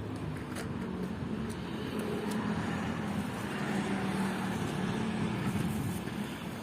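Road traffic: a motor vehicle's engine hum and tyre noise swelling as it passes, loudest around four seconds in, then easing off.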